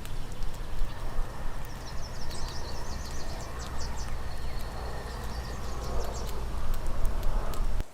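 Wind buffeting the microphone with a gusty low rumble that cuts off suddenly near the end. Small birds chirp in the middle.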